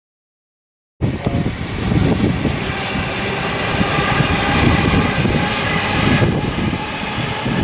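Sydney Trains double-deck electric train passing close by, starting abruptly about a second in, with a steady whine running through the rolling noise. Heavy wind buffeting on the microphone.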